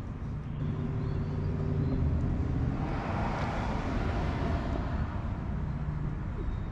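Outdoor road traffic: a steady low engine hum, with a vehicle passing that swells and fades between about three and five seconds in.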